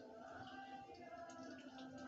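Very faint background music, close to silence.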